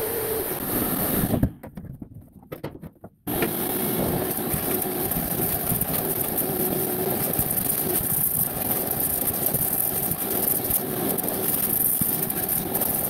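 Shop vacuum running steadily, its hose sucking rust debris off a bare steel floor. It drops out for about two seconds shortly after the start, then runs on at the same level.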